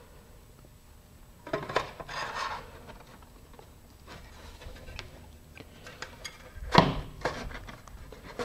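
Fiberglass centering ring scraping and rubbing inside a fiberglass rocket body tube as it is worked past the rail-button weld nut, with light clicks and one sharper knock about seven seconds in.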